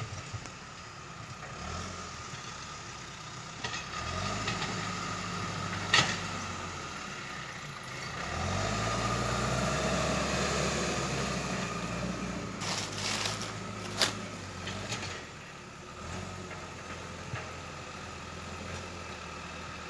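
John Deere 310E backhoe loader's diesel engine working, revving up under load about four seconds in and again, louder, about eight seconds in, then easing back. Sharp knocks come about six and fourteen seconds in, with a short cluster just before the second.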